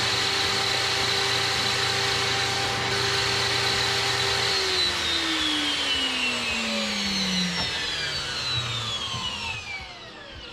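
Circular saw mounted under a board as an improvised table saw, running at a steady speed with a high whine. About four and a half seconds in it is switched off and the whine falls steadily in pitch as the blade spins down over about five seconds.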